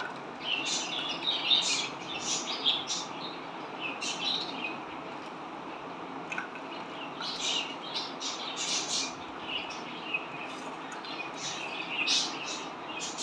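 Green parakeet chirping in many short, irregular high calls.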